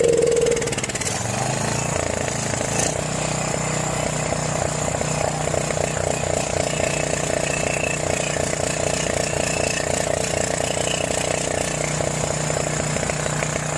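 John Deere 6200 portable generator's engine running steadily on about half choke. It runs rough because the old, varnished carburetor, though cleaned, is not keeping up with the engine's fuel demand.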